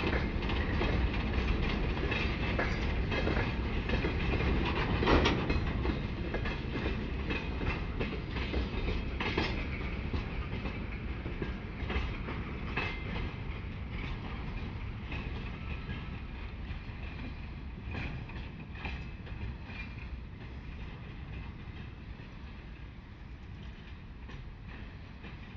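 Freight train wagons rolling past, wheels clicking and knocking over rail joints above a steady low rumble, gradually growing quieter.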